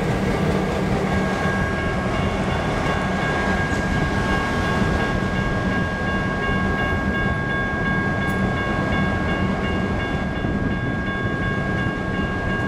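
Diesel locomotives of a short freight train running by with a steady engine drone and wheel noise. A bell rings steadily over them from about a second in.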